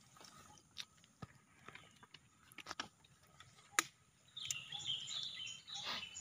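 Close eating sounds, chewing and handling food, with a few sharp clicks. About four and a half seconds in, a bird starts calling in quick, warbling chirps.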